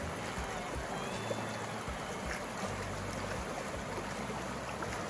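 A shallow creek rushing steadily over low rock ledges.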